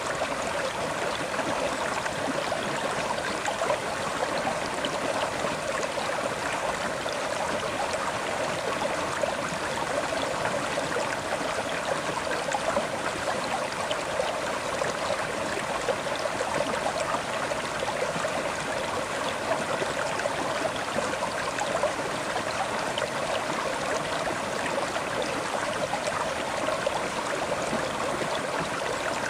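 River water flowing and burbling over rocks, a steady even rush.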